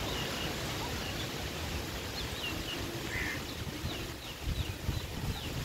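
Small birds chirping here and there in short high calls over a steady low outdoor background noise, with a few low bumps of wind or handling on the microphone about four and a half seconds in.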